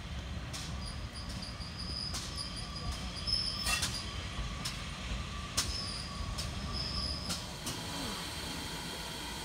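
GWR Modified Hall 4-6-0 steam locomotive 6989 Wightwick Hall running slowly into the platform at the head of a goods train, with a low rumble, sharp clicks every second or so and short high squeals that come and go.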